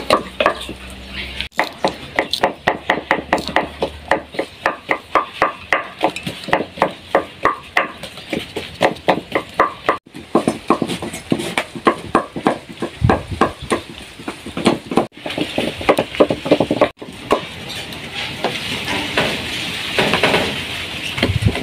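Wooden cooking stick mashing mukimo in a metal pot: quick, rhythmic knocks, several a second. Near the end, cooking oil is poured into a steel pot over chopped spring onions.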